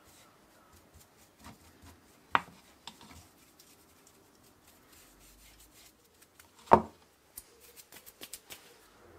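Talc being brushed into a silicone lure mould: soft brushing and handling scuffs, broken by two sharp knocks, one about two seconds in and a louder one near seven seconds, then a quick run of light clicks.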